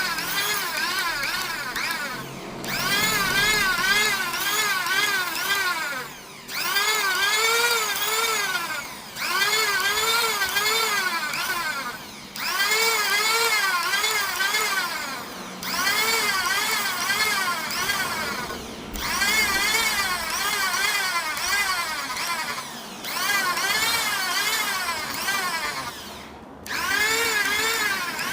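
Power sander working a CNC-machined surface: its motor whine rises and falls a few times a second as it is pressed and swept back and forth. It runs in bouts of three to four seconds with brief pauses between them.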